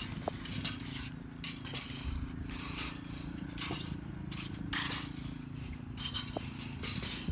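Footsteps and light scuffs and knocks from gathering tennis balls on a hard court, coming irregularly over a steady low background.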